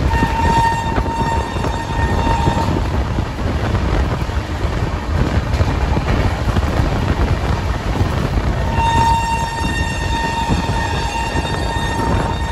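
Express train running through a station, heard from an open coach door: a steady rumble of wheels and rushing air. The locomotive's horn sounds two long steady blasts, the first for about two and a half seconds at the start, the second beginning about nine seconds in.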